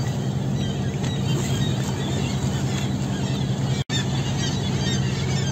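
A motor boat's engine running steadily, with a seabird colony on the cliffs giving many overlapping high calls, which grow busier in the second half. The sound cuts out for an instant just under four seconds in.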